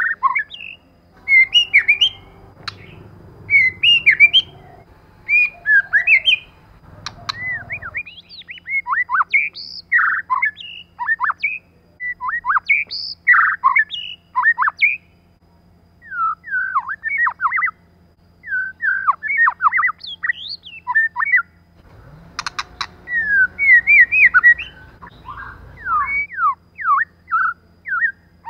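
White-rumped shama singing: quick phrases of varied whistled notes, sweeping up and down, broken by short pauses. A low rumble runs underneath twice, for several seconds each time.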